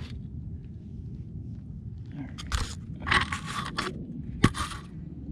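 Gravel and dry dirt crunching and scraping close to the microphone a few times in the second half, as the crouching man shifts on the ground, with one sharp click about four and a half seconds in, over a low steady rumble.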